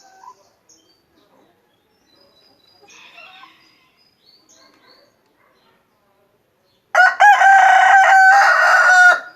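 A free-range backyard rooster crowing once, a loud drawn-out cock-a-doodle-doo of about two and a half seconds starting near the end, after several seconds of faint scattered bird chirps.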